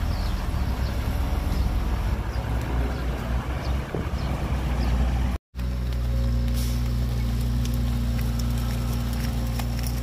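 Heavy diesel engine of a bulldozer or dump truck running under load, its sound rough and uneven. It cuts out for a moment about five and a half seconds in, then comes back as a steady, even engine hum.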